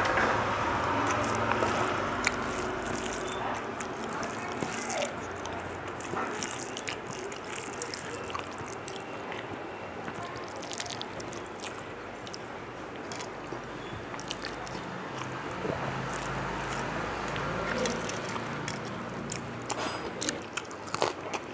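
A person eating rice and curry: scattered wet clicks of chewing and of handling the food.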